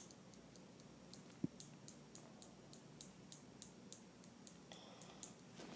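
Miniature scissors snipping open and shut over and over: a run of light, even clicks, about three or four a second.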